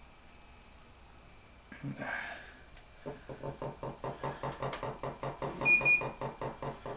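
A short clatter as the DJI Phantom drone is set down on the workbench, then the brushless motors of its newly fitted camera gimbal buzz in even pulses, about five a second, for several seconds.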